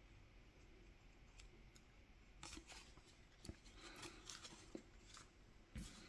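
Faint handling of trading cards: quiet clicks and short rustles of cards sliding against each other, starting about two and a half seconds in, with a soft thump near the end as they are set down on the playmat.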